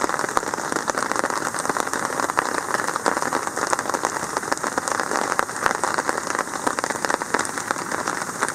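Heavy rain falling on a tarp shelter, a dense, steady patter of countless small drop hits.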